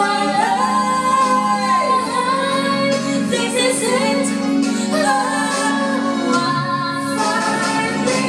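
Music with a female voice singing a held, gliding melody over accompaniment.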